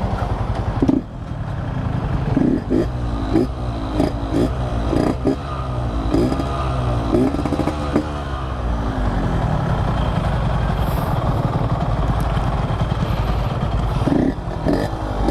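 Motorcycle engine running with a string of short revs that rise and fall in pitch, with scattered clattering knocks. The bike is most likely the Yamaha RX-King's two-stroke single.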